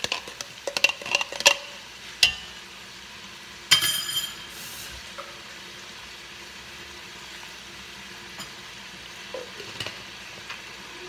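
Pork belly, onions and kimchi sizzling as they sauté in a pot. A quick run of knocks and clicks in the first couple of seconds and a sharp ringing clink about four seconds in, then steady sizzling.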